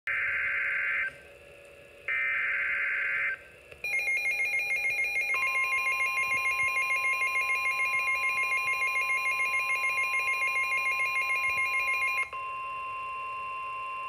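NOAA Weather Radio emergency alert: two short bursts of SAME digital header data, a harsh buzzing screech, then a rapidly pulsing electronic alarm beep. About a second and a half into the beeping, the steady 1050 Hz weather warning tone joins in, and it continues alone after the beeping stops near the end.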